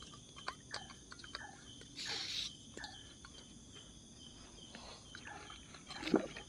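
Steady high chirring of night insects such as crickets, with small metallic clicks and knocks as a gas canister and its hose are handled and fitted to a camping stove. A short hiss comes about two seconds in.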